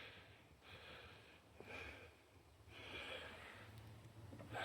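Near silence, with a few faint breaths near the microphone, each about half a second long.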